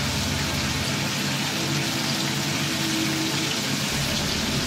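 Flour-coated chicken wings deep-frying in a wok of hot oil: a steady bubbling sizzle.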